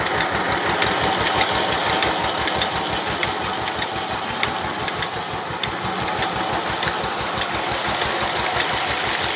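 Eicher tractor's diesel engine running steadily at a constant speed with an even, fast beat, driving a belt-driven irrigation water pump. Water gushes from the pump's discharge pipe into a field channel.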